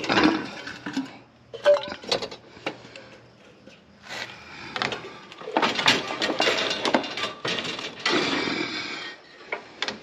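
Metal hand tools and coils of wire clanking and rattling against each other as tools are pulled out of a pile, with irregular knocks and a busy stretch of rattling in the second half.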